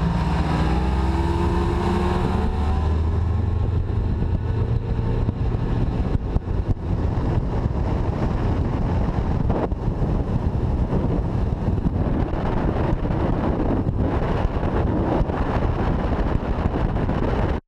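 90 hp outboard motor on a bass boat at full throttle, its pitch rising over the first few seconds as the boat accelerates, then running steadily flat out on a top-speed run, with wind buffeting the microphone.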